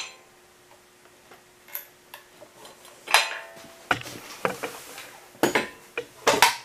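Steel parts of a bead roller's motor drive being handled as the motor and its mounting bracket come off: a sharp metallic clink at the start, a clank that rings briefly about three seconds in, a scraping slide, then a few more knocks near the end.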